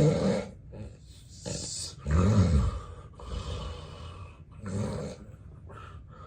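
A man with severe sleep apnea snoring heavily in his sleep: irregular loud snores and noisy breaths, the loudest, a snort that rises and falls in pitch, about two seconds in. It trails off to quieter breathing near the end.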